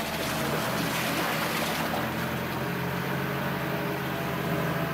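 Diesel engine of a front-end loader running steadily at working revs, with a rougher noise above it that eases about two seconds in.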